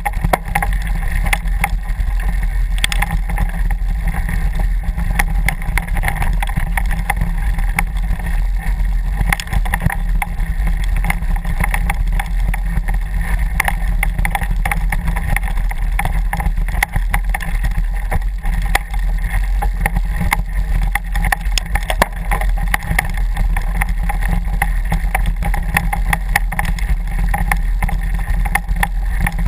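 Mountain bike riding down a rough forest trail, steady wind rumble on the microphone mixed with the bike's constant rattling and small knocks over the ground.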